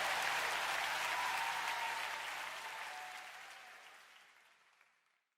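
Audience applauding, the clapping fading out steadily from about two seconds in until it is gone.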